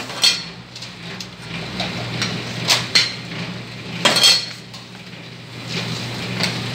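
Serving scoop clinking and scraping against a large steel rice pot as rice is scooped out, in a series of irregular clinks with the loudest about four seconds in. A steady low hum runs underneath.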